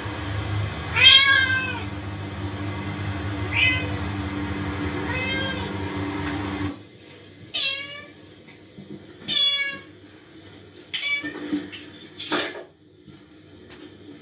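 Recorded cat meowing played through a loudspeaker: six separate meows, about one every two seconds. A steady hum runs under the first half and cuts off suddenly about halfway through, and there is a brief noise near the end.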